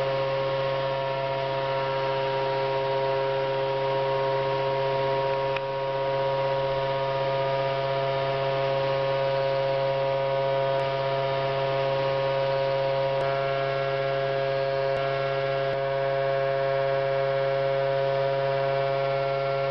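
Variable-speed electric motor spinning a wheel at about 4,400 RPM: a steady whine of several pitches over a low hum.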